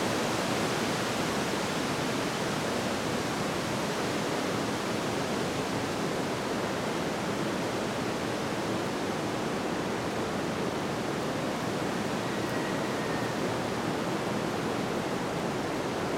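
Steady roar of distant ocean surf, an even wash of noise with no single wave standing out.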